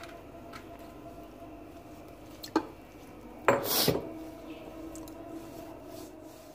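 A hand mixing flour and water in a plastic bowl to make puri dough, with a glass mug handled over the bowl. There is a sharp knock a little over two and a half seconds in and a louder short clatter about three and a half seconds in, over a faint steady hum.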